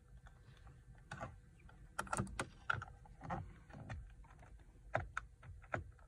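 Small hand screwdriver clicking and scraping as it turns a bolt out from inside a steering wheel, in irregular light clicks, with a quick cluster about two seconds in and a few more near the end.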